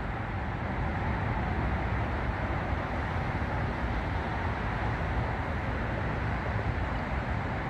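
Steady low rumble of distant engines: a diesel freight train approaching, mixed with city traffic.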